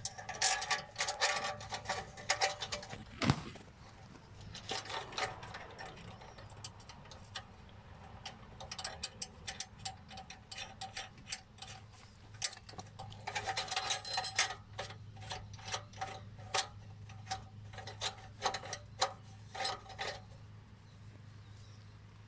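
Ratchet wrench clicking in repeated bursts of quick ticks while working the nuts on the exhaust clamps, with a single knock about three seconds in.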